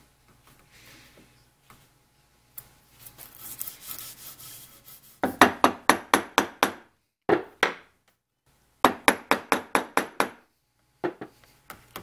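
A steel bevel-edge chisel scraping along the cherry board for a couple of seconds. It is then driven upright into the wood by a mallet in quick runs of sharp taps, about five a second, with short pauses between runs.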